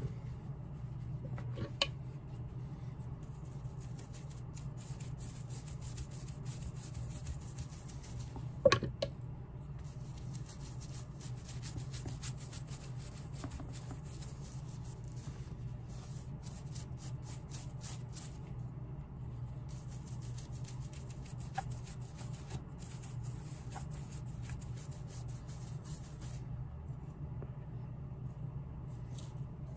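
Dye being rubbed onto leather shoe soles in stretches of soft, quick scratchy strokes, over a steady low hum, with a few light knocks.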